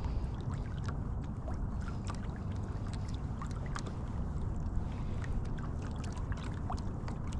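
Water lapping and splashing against the hull of a Hobie Compass pedal kayak as it moves along, with many small splashes and drips over a steady low rumble.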